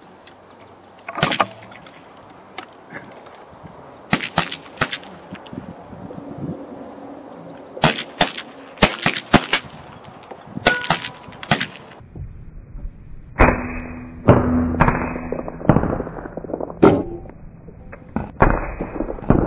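Irregular sharp cracks and clicks of PCP air rifles being fired and worked at a benchrest range, some a second or two apart, others in quick clusters. About twelve seconds in the sound turns duller, with its top end cut off.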